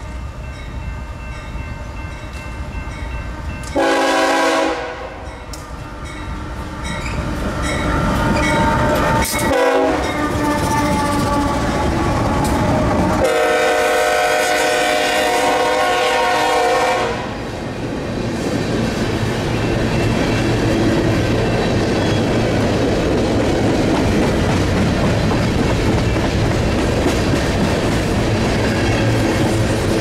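Diesel freight train passing close by: the lead BNSF GE C44-9W locomotive's multi-note air horn sounds a short blast about four seconds in, a brief blast that drops in pitch near ten seconds, and a long blast from about thirteen to seventeen seconds. The locomotives' engines are followed by loaded covered hopper cars rolling past with a steady rumble and clickety-clack of wheels over the rail joints.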